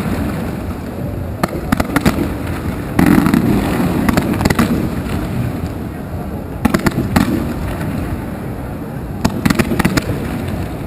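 Fireworks display: shells bursting with deep booms and sharp crackling, in clusters about one and a half, three, seven and nine and a half seconds in, the loudest burst about three seconds in.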